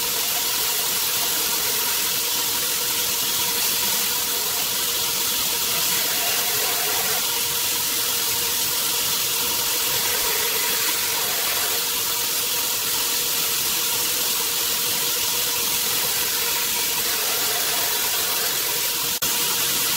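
Belt grinder running with a steel knife blade pressed against the abrasive belt: a continuous grinding hiss over the machine's steady tone, as a bevel is ground freehand.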